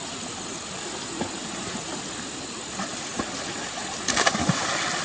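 Shallow water sloshing steadily, with a brief splash about four seconds in.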